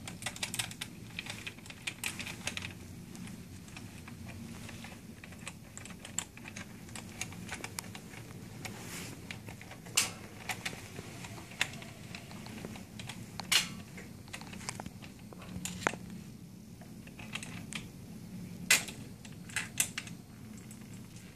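Irregular clicks and taps from handling the Firefly handlebar's metal clamp and fittings while mounting it, with a few sharper clicks, over a steady low hum.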